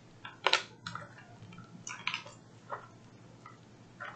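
Small clicks and rustles of acrylic diamond-painting pendant pieces being handled and pulled apart: a few short, light clacks about half a second in, at one second, around two seconds and near three seconds.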